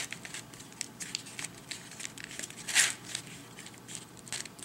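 Plastic ghost cuboid twisty puzzle being turned by hand: a run of small clicks as its layers are shifted and lined up, with one longer scraping turn about three seconds in.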